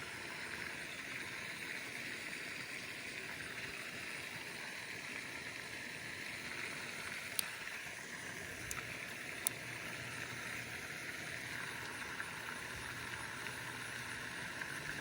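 Steady faint outdoor hiss with three short sharp clicks about halfway through.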